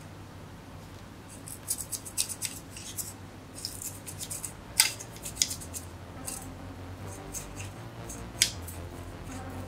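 Irregular scratching and clicking on the metal fin stack of a graphics card heatsink as dust is picked out of it. It starts about a second and a half in, with a couple of sharper clicks near the middle and toward the end.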